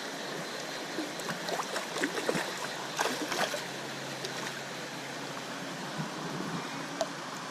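Creek water running steadily, with a cluster of small splashes and clicks about a second to three and a half seconds in.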